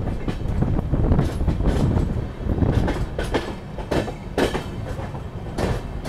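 Passenger train running along the track, heard from outside the coach: a steady low rumble of wheels on rail with a few sharp clacks in the second half.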